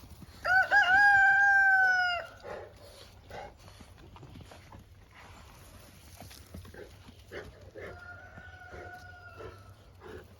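A rooster crowing: one loud, long crow about half a second in that lasts nearly two seconds, and a second, fainter crow near the end.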